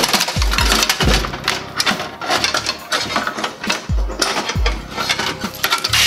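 Metallic clinking and rattling of a computer power supply being lifted out of a steel PC case, over background music with a steady low beat.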